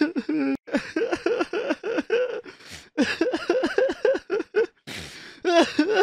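A person crying: choppy, pitched sobs several a second in two runs with a short break between, then a drawn-out wail rising near the end.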